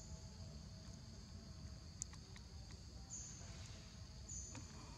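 Faint outdoor ambience of insects: a steady high buzz, with a brief higher chirp repeating about once a second in the second half, over a low rumble and a few faint clicks.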